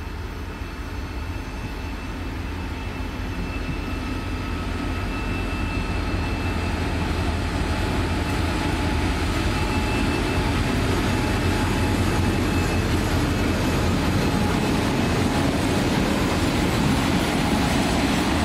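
Heavy freight train, an M62 diesel locomotive hauling flat wagons loaded with steel blocks, rolling past on the rails. Its low rumble builds steadily louder, and faint thin high tones sit above it.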